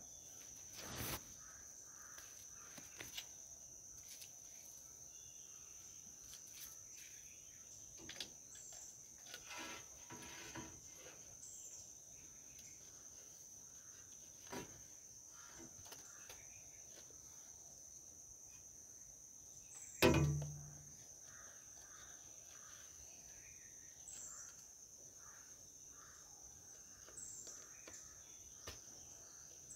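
Crickets giving a steady high trill, with scattered light knocks and clicks as a glass pane in its rubber seal is handled against a three-wheeler's metal rear window frame, and one louder thump about twenty seconds in.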